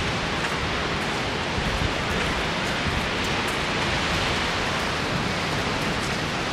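Steady rushing noise of sea wind and ocean surf, even throughout, with no other sound standing out.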